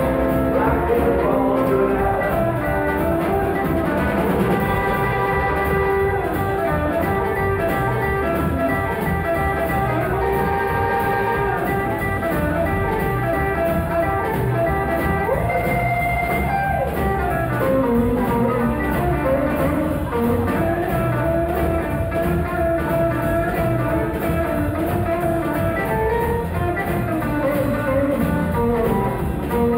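Live blues band playing an instrumental passage without vocals: hollow-body electric guitar with upright double bass and drum kit.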